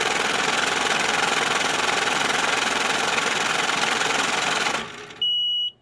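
Banknote counting machine running, riffling rapidly and evenly through a stack of bills. It stops about five seconds in and gives a short, high electronic beep, typical of a counter signalling the end of the count.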